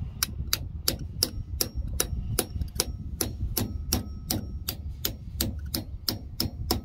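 A hammer tapping a punch to drive a steel roll pin into a pulley hub on a combine's gearbox shaft: light metal-on-metal strikes in a steady rhythm of about three a second, each with a short metallic ring, over a low background rumble.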